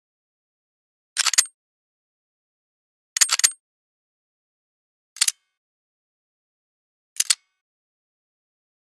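Slide switch being slid, four times about two seconds apart, each a short clicky snap; the first and third take a little longer and rattle through several clicks.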